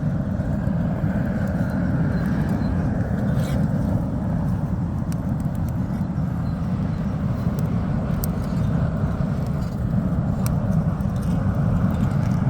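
Wood fire in a homemade furnace burning hard under forced air from an electric blower on its highest setting: a steady, loud rushing rumble with a few faint crackles.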